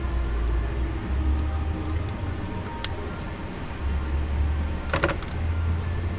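Steady low hum with a few light clicks and a short clatter about five seconds in, as a wiring-harness electrical connector with a slide lock is worked loose in a Ram HEMI engine bay.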